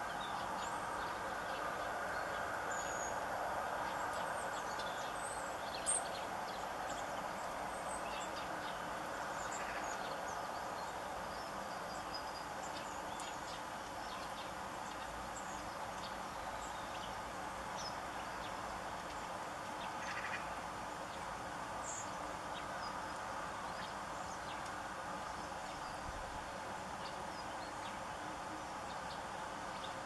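Small garden birds at feeders giving scattered short, high chirps and calls over steady background noise, with a sharp click about six seconds in.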